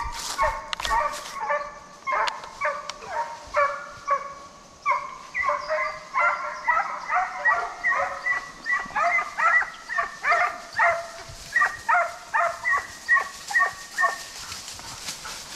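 Deer hounds baying: a long run of quick, pitched barks, about two a second, that stops about a second before the end.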